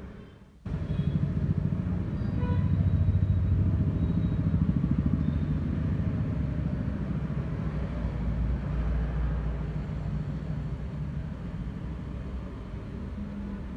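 Steady low mechanical rumble, like a motor or engine running, that starts abruptly about half a second in.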